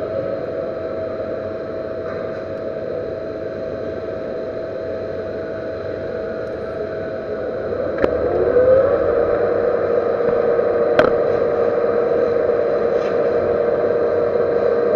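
Metal lathe running steadily, turning a servo motor shaft. About eight seconds in it gets louder as a new whine rises in pitch and then holds, with two sharp ticks.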